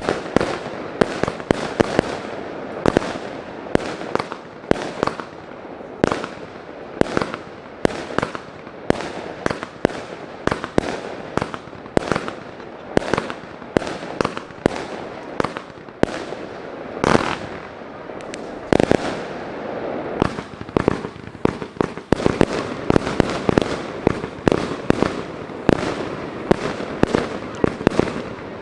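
A fireworks display: shells bursting one after another, several bangs a second, with crackle between the reports.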